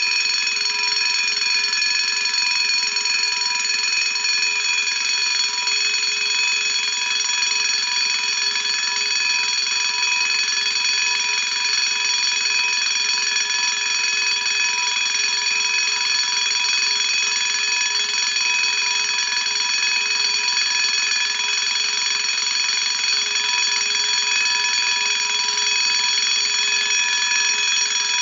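A wind-up Vanguard Protection System V-2 heat detector bell rings loudly and steadily without a break as its wound spring runs through its long ring cycle.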